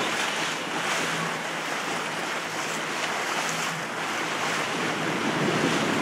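Steady wind noise on the microphone over the wash of waves on open water.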